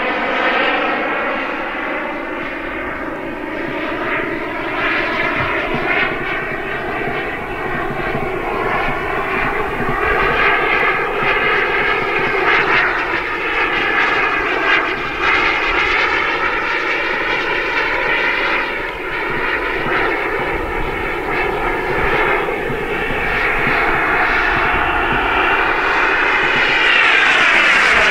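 Kingtech K85 G4 turbine of a 1.8 m Hangar9 MB-339 model jet in flight: a steady turbine whoosh that swells and fades as the jet moves around the sky. Near the end it grows louder as the jet comes closer, and its pitch sweeps down as it passes.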